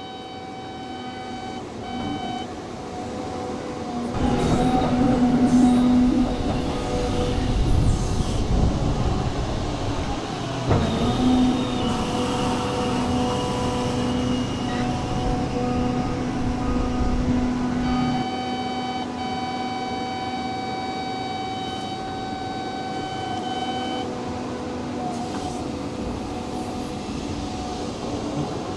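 Cat hydraulic excavator's engine and hydraulics working as its tiltrotator bucket digs along a slope, heaviest and loudest from about four to eighteen seconds in, over a steady machine hum. A steady high tone sounds at the start and again from about eighteen to twenty-four seconds in.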